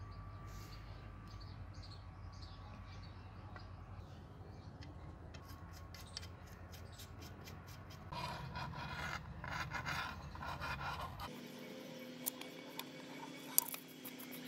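Faint handling noise from a small piston air-compressor pump being put together by hand: rustling and scraping over a low background hum, louder for a few seconds about two-thirds of the way through. After a cut come a few light metal clicks.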